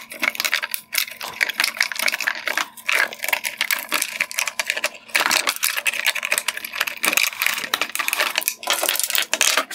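A wiring harness being pulled out of a 2016–2019 GMC Sierra LED headlight's plastic housing: a busy run of clicks, crackles and scrapes as the wires, plastic clips and connectors drag and rattle against the housing.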